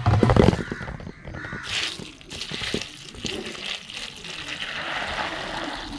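A metal vessel clattering, then water sloshing and splashing as puffed rice is washed by hand in a vessel.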